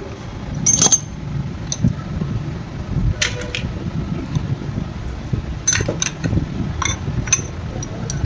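Metal engine parts and hand tools clinking and knocking several times, in short separate strikes, over a steady low hum.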